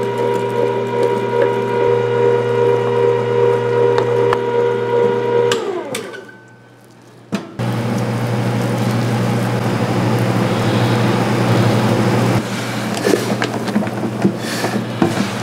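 A small electric motor, likely a kitchen machine, running steadily with a fixed whine, then winding down and stopping about five and a half seconds in. After a short lull and a click, a steady, noisier whir with a low hum starts up and runs on.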